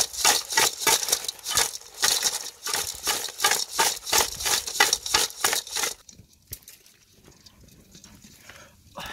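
Live crabs scrabbling against the inside of a metal cooking pot: a fast run of scratchy clicks and scrapes, several a second, that stops about six seconds in.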